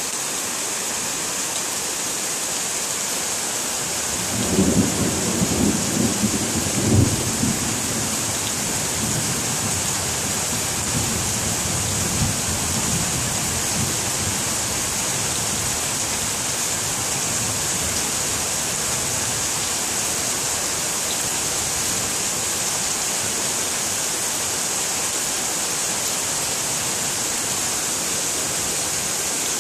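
Steady rain falling, with a rumble of thunder that starts about four seconds in, is loudest a few seconds later and fades out over the next several seconds.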